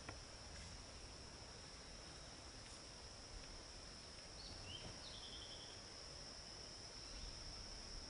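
Faint, steady high-pitched insect drone, with a bird giving a few short notes and a quick trill about five seconds in.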